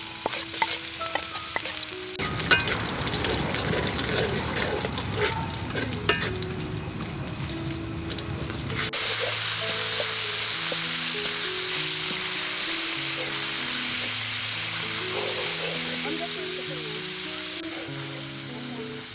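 Minced garlic frying in hot oil in a wok, crackling with small pops. From about nine seconds in, chopped pork fries with a louder, steadier sizzle while a metal spatula stirs it against the wok.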